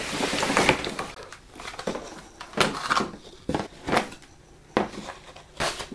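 Cardboard kit packaging being handled. A rustling, sliding scrape of card runs through the first second, then a string of short knocks and taps of cardboard as a small cardboard parts box is lifted out of the kit box.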